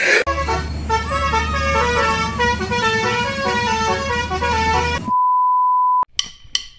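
Telolet bus horn playing a multi-note melody in stepped tones over a low hum for about five seconds. Then a steady high beep for about a second, cut off sharply, and a few sharp clicks near the end.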